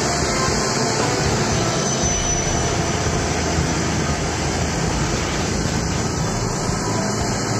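Steady running noise of a vehicle travelling along a road: a constant engine drone under a wide hiss of wind and tyres.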